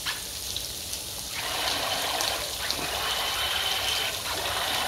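Water churning and splashing as the treads of a Hot Wheels RC Terrain Twister amphibious toy paddle it across a swimming pool, getting louder about a second and a half in, over a steady trickle of water.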